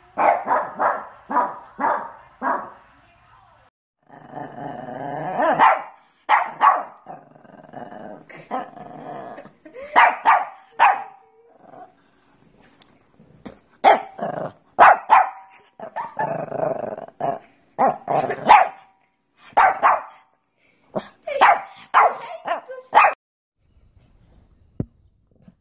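Pekingese dogs barking in strings of short, sharp barks, with a longer drawn-out growl about four seconds in. The barking stops a couple of seconds before the end.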